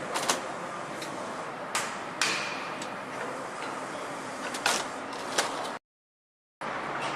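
Engine-assembly work noise: a steady background hum with scattered sharp metallic clicks and clanks, one leaving a brief ring. The sound cuts out completely for under a second near the end.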